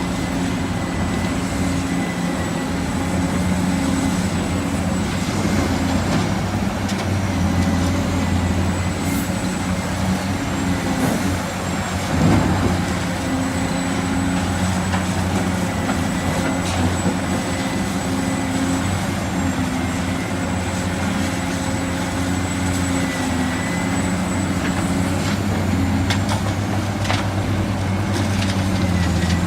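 Heavy diesel construction machinery, such as an excavator, running steadily under work, with a thin steady high whine over the engine. There is one brief louder knock around the middle.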